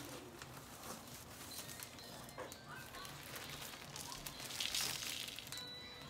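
Clear plastic plant sleeves and a cardboard box being handled: faint scattered rustling and crinkling, with a louder crinkle of plastic close by near the end.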